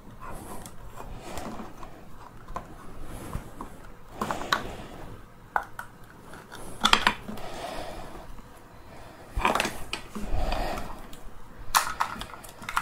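A circuit board being pried and worked loose from a scooter battery pack's plastic housing with hands and a screwdriver: irregular clicks, knocks and scrapes of plastic, wires and tool.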